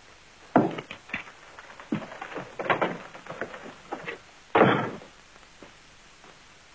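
Irregular knocks and thuds over about four seconds, the loudest a heavy thud about four and a half seconds in.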